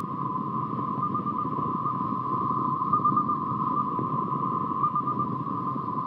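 Sound-designed logo animation: a steady, radio-like band of noise with a short cluster of beeps about once a second, over a low rumble.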